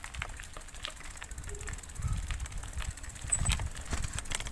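Bicycle rolling fast over a stony dirt track: a low rumble of wind on the microphone and tyres on the ground, swelling twice, with scattered clicks and rattles from the bike jolting over stones.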